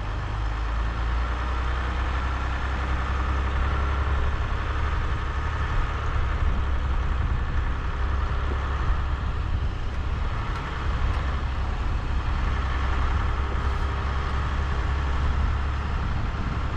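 Steady low rumble of a car driving, engine and road noise heard from inside the vehicle.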